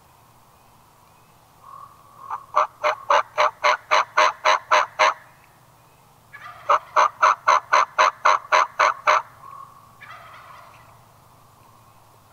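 Wild turkey yelping: two long, evenly paced series of about a dozen loud yelps each, the second starting a little over a second after the first ends.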